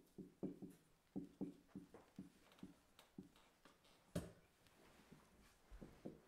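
Dry-erase marker writing on a whiteboard: a faint, quick, irregular run of short taps and strokes as letters are drawn, with one sharper knock about four seconds in.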